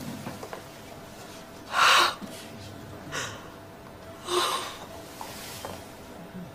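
A woman gasping in shock and distress: three short, sharp intakes of breath, the first, about two seconds in, the loudest.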